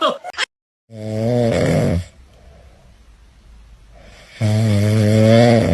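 A sleeping pet snoring loudly: two long snores about three seconds apart, each a steady low-pitched drone.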